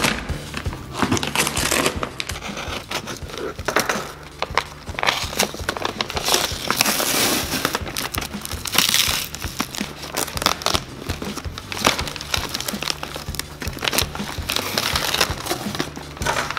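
Yellow paper postal wrapping crinkling and rustling as it is pulled and peeled off a cardboard box, over background music.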